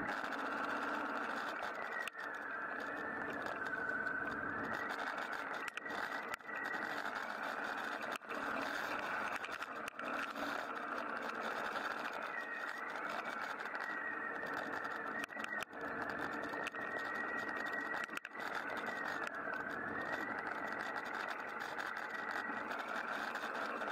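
Motorcycle running at a steady speed, engine and road noise with a high whine that slowly wavers up and down in pitch, and a few brief dips in loudness.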